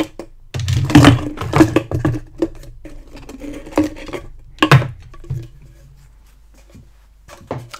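Die-cast toy cars and small metal enamel paint tins clattering together as they are tipped and shaken out of a jar onto a cutting mat: a run of knocks and rattles about a second in, and one more sharp knock just before five seconds.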